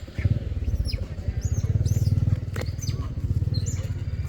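Young monkeys giving several short, high squeaks that rise and fall, over a loud low pulsing rumble like a small engine running that starts a moment in.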